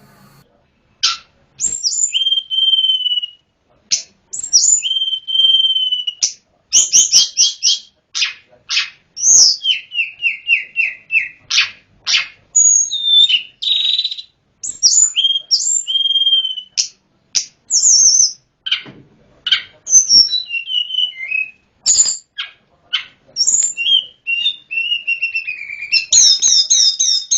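Tledekan gunung singing a long, varied song: clear whistled notes, quick up-and-down glides and rapid repeated trills in short phrases with brief pauses between them.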